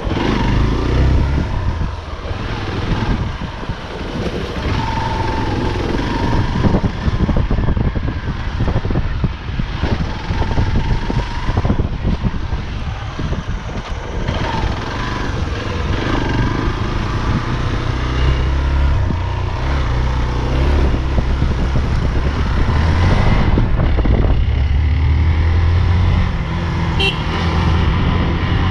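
Hero XPulse 200 motorcycle ridden over a rough dirt trail, its single-cylinder engine running under changing throttle. Heavy low wind buffeting on the action-camera microphone, and frequent knocks and rattles from the bumpy ground, mostly in the first half.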